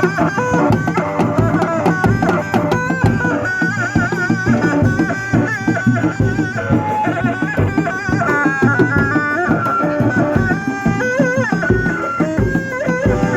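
Kuda lumping accompaniment music: a reedy, wavering melody bending in pitch over fast, dense hand-drum patterns, likely a Sundanese terompet with kendang drums.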